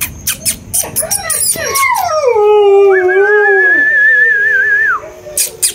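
Kanni puppy howling and whining: a long cry that falls steadily in pitch over about three seconds, joined about three seconds in by a second, higher wavering cry that breaks off about five seconds in. Quick sharp clicks come before the cries.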